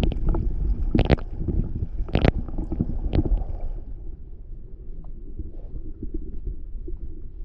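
Muffled rumbling and sloshing of water heard through a submerged GoPro's waterproof housing on a kayak hull. Three sharp knocks come about a second apart in the first three seconds, then the rumble settles lower and softer.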